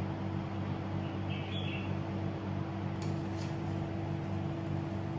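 A pancake frying in a lightly oiled pan on the stove: a steady low hum under an even hiss, with two faint clicks about three seconds in.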